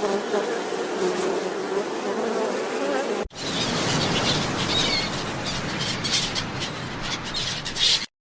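Flying insect buzzing steadily, in two clips joined by a short break about three seconds in; the second part is brighter and flickers.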